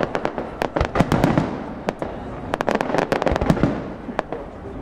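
Aerial fireworks bursting: a rapid, irregular string of sharp bangs and crackles over a continuous rumble, thickest about a second in and again around three seconds.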